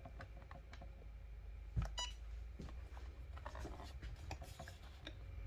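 Cricut EasyPress heat press giving one short beep about two seconds in as its 60-second press timer starts. Soft knocks and rustles come from hands pressing down on the plate.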